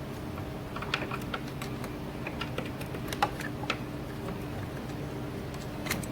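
Irregular light clicks and taps of hand tools being worked on the car's engine, about half a dozen of them, over a steady background hum.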